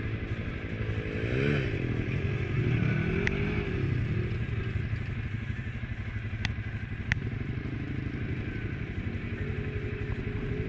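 Suzuki KingQuad ATV engine idling steadily, with another off-road vehicle's engine revving up and down between about one and four seconds in. A few sharp ticks are heard.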